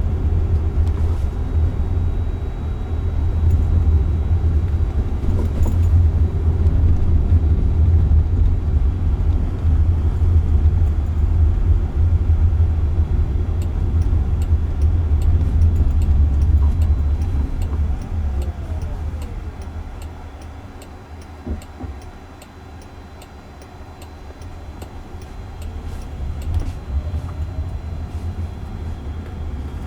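Road and tyre rumble inside a moving car's cabin, steady at first, then easing off about two-thirds of the way through as the car slows, with a falling whine; near the end the rumble builds again with a rising whine as it picks up speed.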